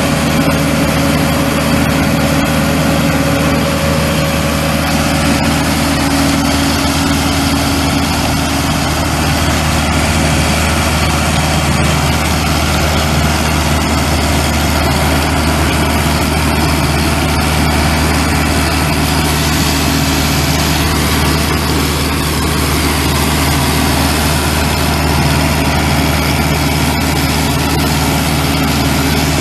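Diesel engine of a street sweeper truck running steadily at idle, with an even hiss over the low engine note.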